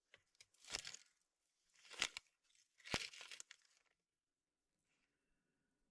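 Three short bursts of tearing and crumpling, about a second apart, as kindling is readied to light a wood stove.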